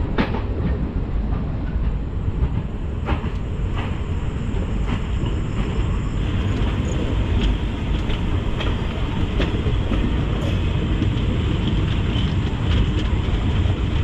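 Passenger train running: a steady rumble of the coaches with the wheels clacking over rail joints at irregular intervals.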